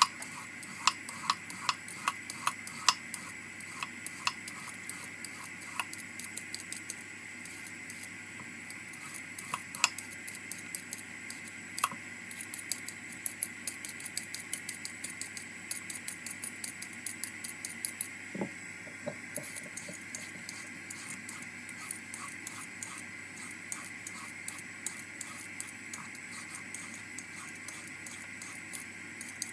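Vegetable peeler scraping down a carrot and then a cucumber, stroke after stroke: a run of crisp, quick ticks, several a second, with a few duller knocks a little past the middle.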